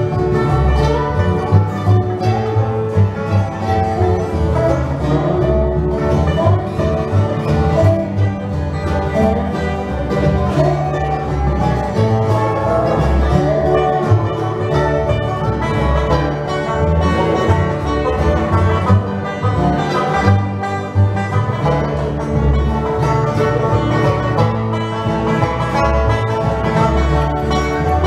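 Live bluegrass band playing: upright bass, acoustic guitar, banjo and mandolin, with a gliding lead melody over a steady bass.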